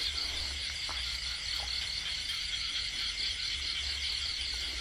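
Steady night chorus of frogs and insects: a dense, rapidly pulsing trill that goes on unbroken.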